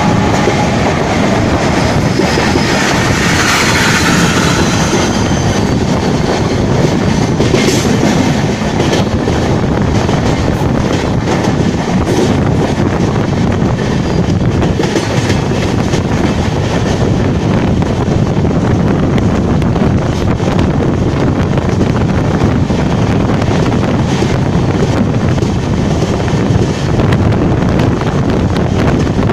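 Indian Railways express train running at speed, heard from an open coach door: steel wheels clacking over rail joints under a steady rush of air. A goods train's electric locomotive and covered wagons pass close alongside, louder and hissier in the first few seconds, with rapid clicking as the wagons go by.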